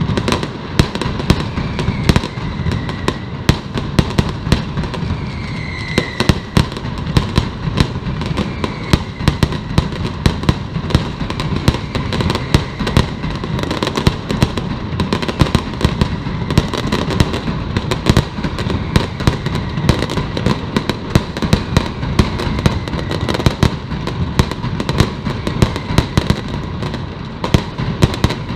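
Mascletà firecracker barrage: a dense, unbroken rattle of rapid sharp bangs from strings of masclets going off in quick succession. A few short falling whistles cut through the bangs in the first ten seconds.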